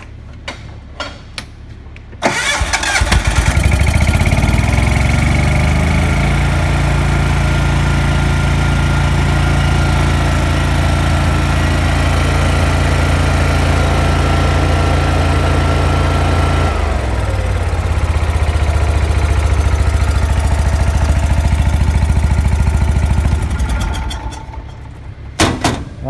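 Lincoln Ranger 250 welder's gasoline engine catching about two seconds in and running up to speed, then running steadily. It is starting again now that its rotten fuel lines, which let the fuel pump suck air and lose prime, have been replaced. Past the middle it drops to a lower, steady engine speed, and near the end it winds down.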